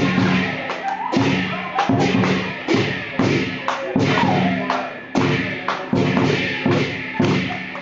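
Chinese lion dance drum and cymbals playing the dance rhythm: repeated drum strikes, each ringing on low, with cymbal crashes, about two to three beats a second.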